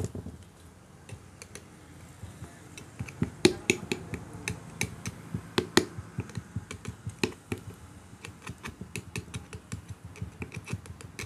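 Irregular sharp metallic clicks and taps, a few a second, of a screwdriver and small parts against the metal end of an electric power steering motor as parts are fitted at its shaft end.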